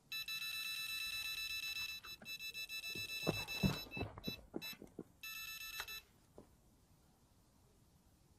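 Carp angler's electronic bite alarm sounding: a continuous high-pitched beeping tone that turns into rapid pulses, the sign of a fish taking line. A few knocks and thumps sound in the middle, and the tone comes back briefly before it stops.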